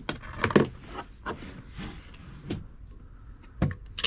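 Irregular knocks and clicks of tools and parts being handled, a few at a time, with no engine running.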